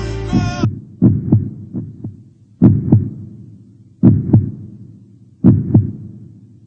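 Heartbeat sound effect: low double thumps, lub-dub, repeating about every second and a half. A held music chord cuts off under a second in.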